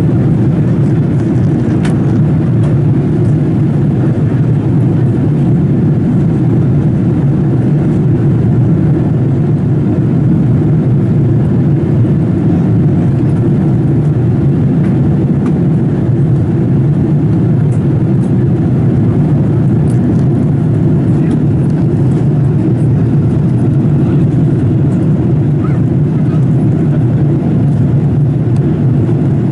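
Steady cabin noise inside a Boeing 787-8 in flight: the low, even drone of the engines and the air rushing past the fuselage.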